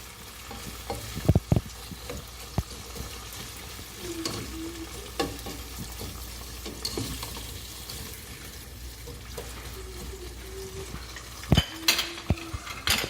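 Shrimps frying in vegetable oil in a pan, a steady sizzle broken by sharp knocks and scrapes of a utensil stirring against the pan, loudest about a second in and again near the end.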